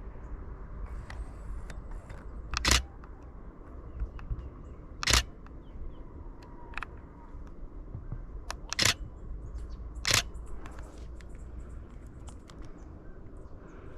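Canon Rebel T7i DSLR shutter firing four times, a few seconds apart, with a few fainter camera clicks in between.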